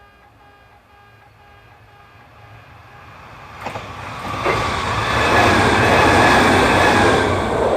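Kintetsu 'Blue Symphony' limited express electric train approaching and passing over a level crossing: a rumble of wheels on rail that grows steadily, with two sharp knocks about halfway, and is loudest near the end before starting to fade. The crossing's electronic 'pe-pe' warning tones sound faintly at the start.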